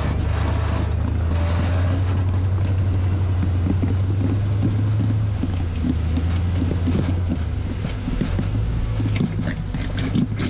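Rock crawler's engine running steadily under load as it climbs a rock ledge, its note dropping about eight seconds in. A few sharp clicks and knocks near the end.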